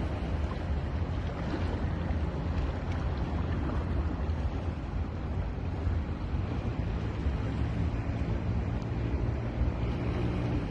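Ocean surf washing steadily onto a beach, with a deep wind rumble on the microphone.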